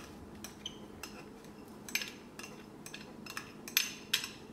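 A measuring cup clinking and tapping against the rim of a glass mixing bowl as sticky dark brown sugar is knocked out of it. It makes about a dozen light, irregular clinks, and the loudest come near the end.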